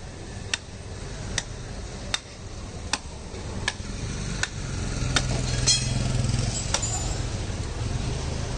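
A butcher's heavy knife chopping into a hanging beef carcass, a sharp chop about every three-quarters of a second. A low engine hum from passing traffic swells under the chops in the second half.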